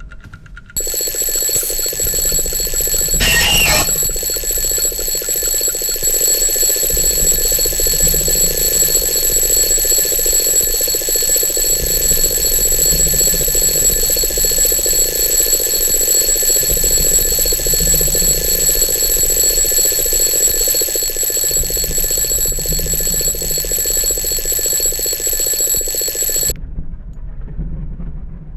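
Alarm clock ringing continuously on a steady set of high tones, starting about a second in and cutting off suddenly near the end. A brief clatter sounds a few seconds in.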